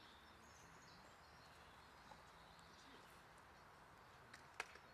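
Near silence: faint outdoor ambience with a few faint high bird chirps, and a single sharp click near the end.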